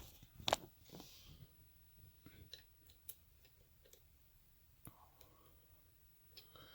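Faint, scattered clicks and taps of a lock and metal picking tools being handled and repositioned, with one sharper click about half a second in and another near five seconds.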